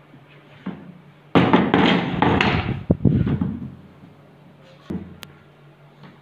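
Wooden boards of a hinged book stand being handled: a light knock, then about two seconds of loud wood-on-wood rubbing and clatter with a couple of sharp clicks, and another knock and click near the end.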